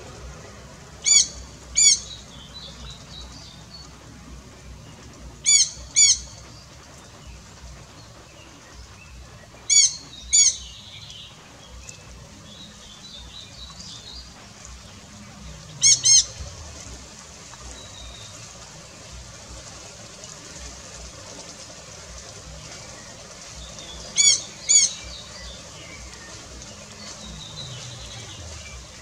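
Jandaya parakeets calling: five pairs of short, high screeches, each pair two calls about half a second apart, spaced several seconds apart, with softer chatter in between.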